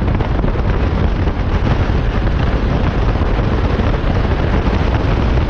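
Moving VW Beetle heard through a microphone mounted low on its side near the front wheel: loud, steady wind buffeting the microphone over the rush of the tyres on the road.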